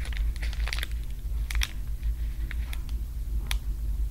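Foil wrapper of a Pokémon card booster pack crinkling in scattered short clicks as it is handled in the fingers, over a steady low hum.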